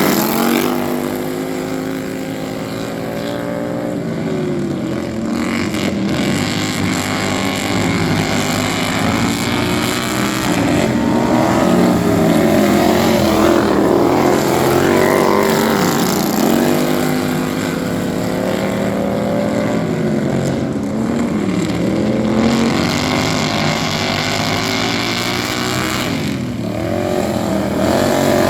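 Several racing lawn mower engines running at once, their pitches rising and falling as they rev up and back off.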